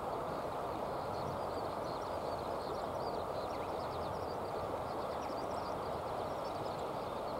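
Steady rushing outdoor background noise with many faint, short, high bird chirps scattered through it.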